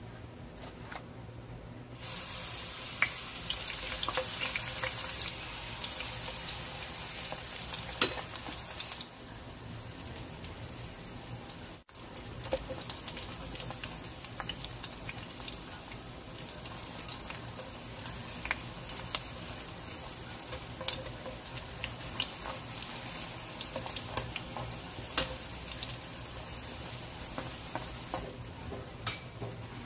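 Battered kangkong (water spinach) leaves frying in hot oil in a wok: a steady sizzle with scattered crackles and pops. It gets much louder about two seconds in and is loudest for the next several seconds.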